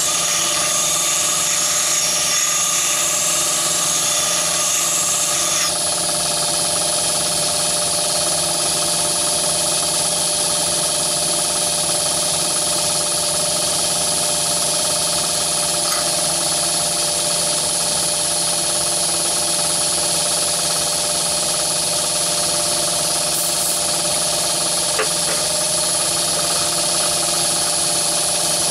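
Myford ML7 lathe running at top speed on its VFD, spinning a diamond cup lapping wheel while a carbide-tipped cutting tool is lapped against the wheel's rim. A steady machine whine with several held tones; a higher-pitched part cuts off about six seconds in.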